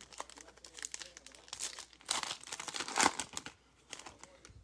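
Foil wrapper of a basketball trading card pack crinkling in the hands as it is opened and pulled off the cards, in several irregular crackly bursts that die down near the end.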